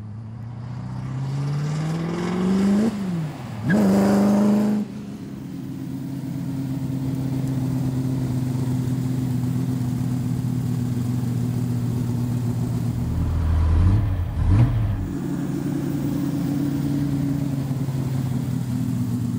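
The 427 cubic-inch big-block V8 of a Shelby American Ford GT40 accelerating. Its revs climb, drop at a gear change about three seconds in, then climb again loudly for about a second before it settles into a steady run, with a brief rev blip about two-thirds of the way through.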